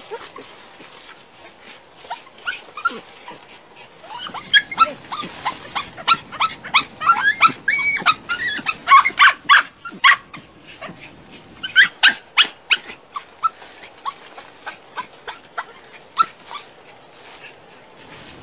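Dogs yipping and whining excitedly in quick short cries as they dig and sniff at a burrow, thickest through the middle and thinning out toward the end.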